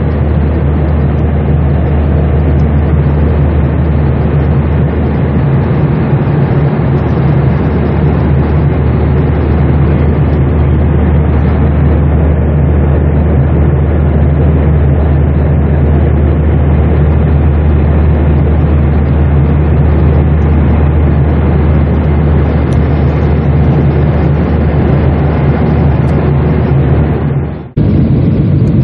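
Steady drone of an airliner in flight heard from inside the cabin: engine and airflow noise with a strong low hum. It drops out for a moment near the end, then carries on as before.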